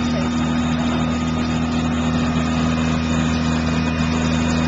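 Fire engine's diesel engine running steadily at idle, a constant low hum with no revving.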